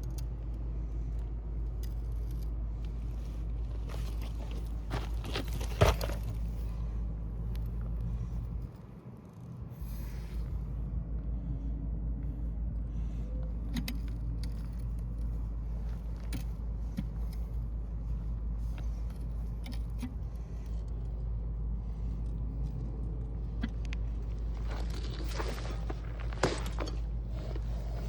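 Scattered scrapes, clicks and clinks of hand work on a water line, over a steady low rumble like a nearby engine running. A sharp click stands out about six seconds in, and the rumble drops away briefly a few seconds later.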